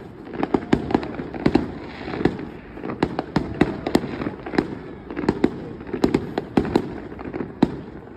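Fireworks display bursting nonstop: an irregular string of sharp bangs and cracks, several a second, over a steady low rumble.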